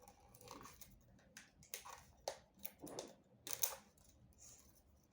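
Toy packaging being opened by hand: a run of irregular small clicks and crinkles, the sharpest about three and a half seconds in.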